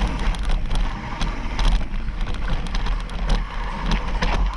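Mountain bike rolling fast down a dirt trail: tyres on packed dirt and loose stones with frequent clicks and knocks as the bike rattles over bumps, over a steady low wind rumble on the microphone.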